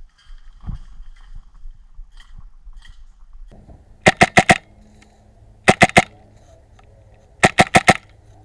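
HPA-powered airsoft rifle firing three short bursts of rapid shots, each of about three to five sharp cracks, spaced a second or so apart.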